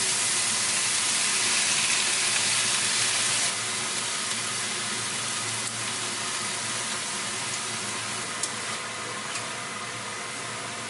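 Julienned carrots, bell peppers and onion sizzling in oil in a hot non-stick pan, a steady hiss that drops suddenly in level about three and a half seconds in. Near the end come a few light clicks of the stirring utensil against the pan.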